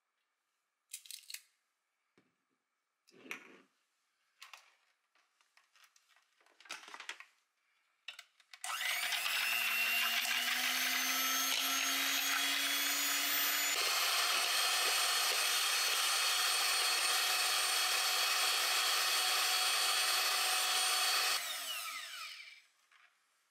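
Electric hand mixer with twin wire beaters whipping cream in a glass bowl: the motor starts a little over a third of the way in, its lowest note rising slightly as it first comes up to speed, runs steadily for about thirteen seconds, then stops near the end. Before it, a few light clicks and taps.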